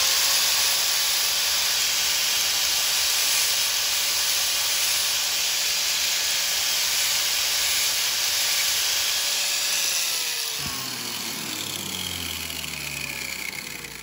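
Grinder motor spinning up, then grinding the tip of a metal hair clip to narrow it, with a steady hiss over the motor's hum. After about ten seconds the motor winds down, its pitch falling.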